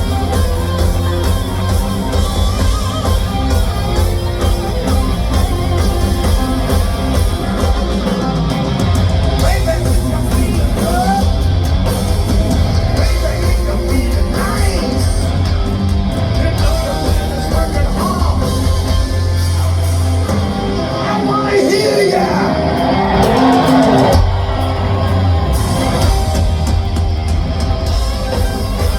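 Live hard-rock band playing loud, with heavy bass and drums under guitar. The low bass drops away for a few seconds past the middle, then comes back in.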